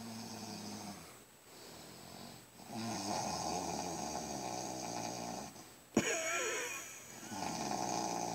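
A man snoring heavily in his sleep: a weaker snore at the start, then two long, loud snores, the first about three seconds in and the next near the end. A single sharp knock comes between them, about six seconds in.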